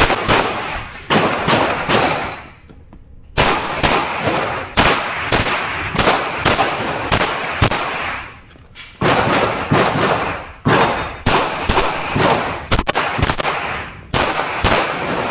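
Semi-automatic pistol fired in rapid strings of shots, many in quick pairs, with short breaks of about a second between strings while the shooter moves or reloads during a practical shooting course of fire. Each shot trails off in echo.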